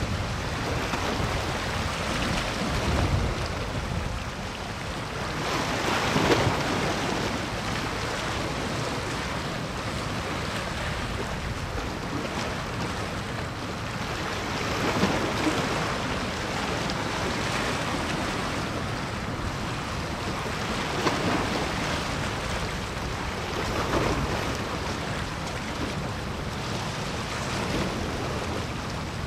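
Waves washing on the water, surging every few seconds, over a steady rush of wind on the microphone.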